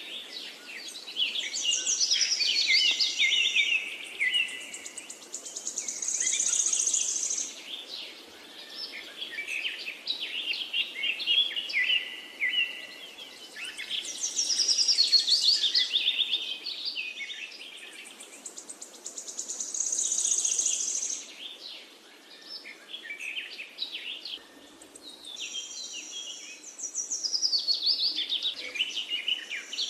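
Small birds chirping and trilling together in a busy chorus, coming in loud bouts every few seconds.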